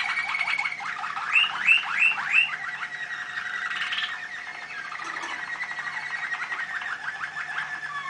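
Domestic canary singing a long unbroken song of rapid trills and rolls over a held high note, with four loud falling notes in a row about a second and a half in.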